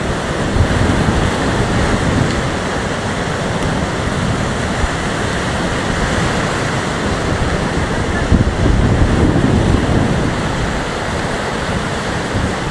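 Heavy storm surf breaking and washing on the shore, with strong wind rumbling on the microphone. The surf swells louder about a second in and again from about eight to ten seconds in.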